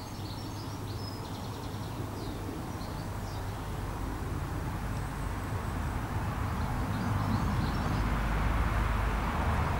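Outdoor background noise: a low rumble that grows louder through the second half, with faint, short bird chirps now and then.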